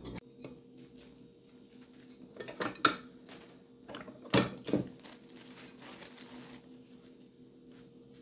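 An aluminium tortilla press being handled and opened, its hinged plates and lever giving sharp metallic clanks in two pairs, about three and four and a half seconds in, with some rustling, over a steady low hum.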